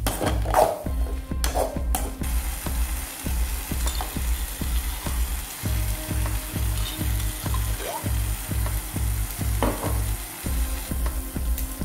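Tomato masala sizzling in oil in an aluminium kadai, stirred and scraped with a steel ladle, with most of the strokes in the first two seconds. Under it runs a low hum that breaks off briefly every two to three seconds.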